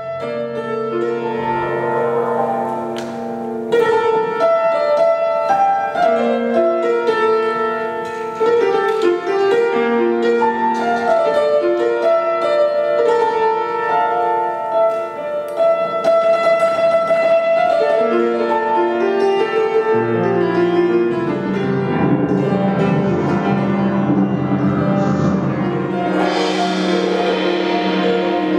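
Live piano music: a slow melody of held notes. A low bass note enters about twenty seconds in, and a higher, hissing swell joins near the end.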